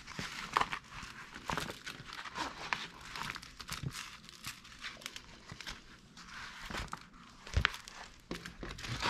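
A diamond painting canvas covered in clear plastic film crinkling and rustling as it is handled, flattened and lifted, in irregular small crackles.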